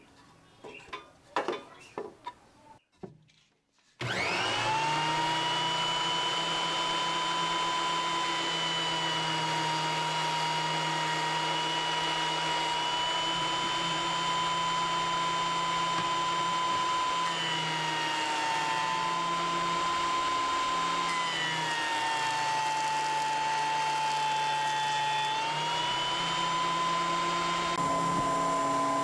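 Exmac 8-inch jointer planer starting up after a few light handling clicks, its motor spinning up suddenly about four seconds in and then running with a steady high whine. The pitch sags briefly twice in the second half before recovering.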